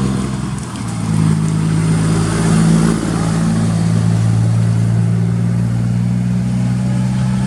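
Scania R540 truck's diesel engine rumbling with a deep, steady tone, dipping briefly a little under a second in and then settling back to an even run.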